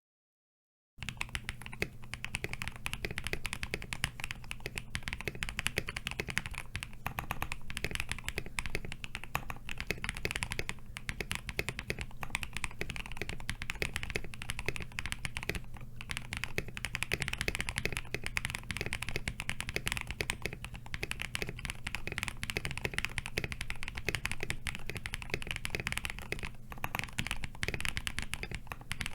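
Continuous fast typing on the alpha keys of a KBD67 Lite R3 keyboard with lubed and filmed Durock POM switches, a PC plate and KAT-profile keycaps: a dense run of clicky key strikes. It starts about a second in.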